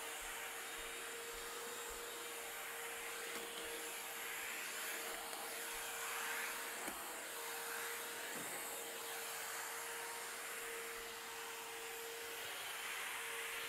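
Shark VacMop running steadily as it is pushed over a hard floor: a constant motor whine over a steady suction hiss.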